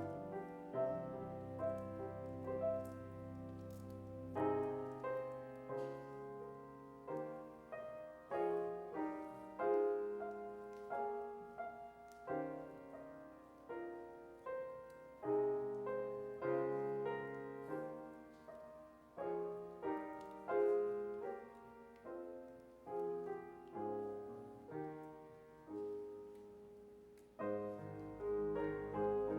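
Piano playing slow, gentle instrumental music, chords struck and left to ring.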